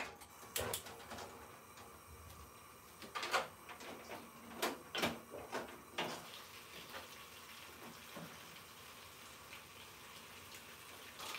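Kitchen clatter: a handful of separate knocks and clacks of cookware and utensils being handled, mostly in the first six seconds, over a faint steady background.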